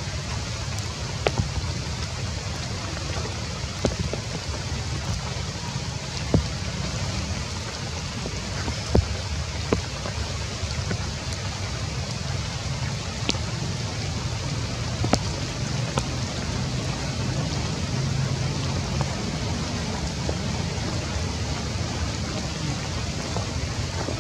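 Steady rain falling on forest foliage over a low steady rumble, with scattered sharp clicks of single drops striking close by.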